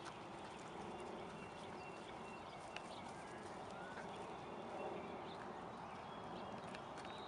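Footsteps on an asphalt path as a person and a small dog walk along, with scattered light clicks and a few faint bird chirps.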